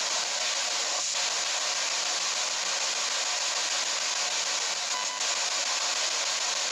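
S-Box spirit box running, giving a steady hiss of white-noise static.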